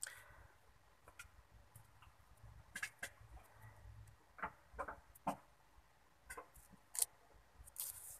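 Faint, irregular crackles and clicks of a dried egg-white face mask being picked and peeled off the skin with the fingertips, the sharpest about seven seconds in.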